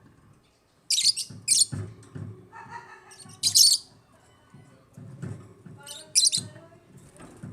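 African lovebirds chirping: short, shrill, piercing chirps in a few loud clusters, with softer, lower chattering calls in between.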